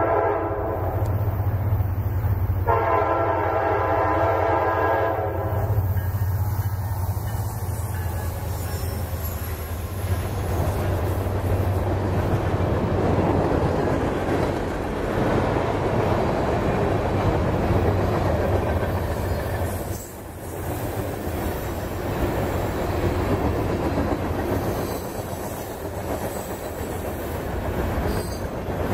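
Diesel freight locomotive's air horn sounding a blast that ends just after the start and a second, longer blast about three seconds in, over the low drone of the locomotives' engines. The train's tank cars and covered hoppers then roll past with a steady rumble and wheel clatter on the rails.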